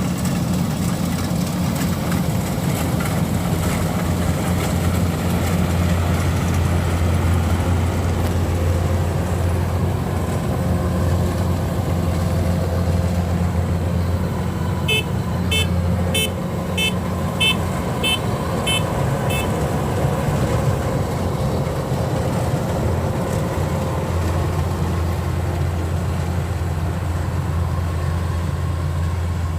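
Kubota DC93 combine harvester's diesel engine running at a steady speed. About halfway through, a warning buzzer on the machine sounds a run of about nine short beeps, roughly two a second.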